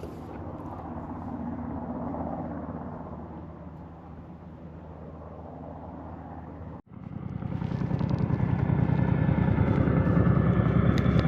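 Helicopter circling in the distance, a steady low rotor hum; after a brief dropout about seven seconds in, it comes back louder with a fast, even rotor beat.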